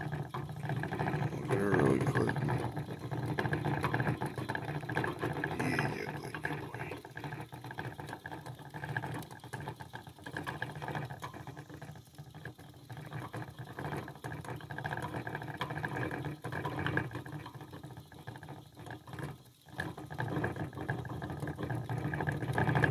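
Chinese dwarf hamster running in a plastic exercise wheel, the spinning wheel rattling steadily, with a brief pause near the end.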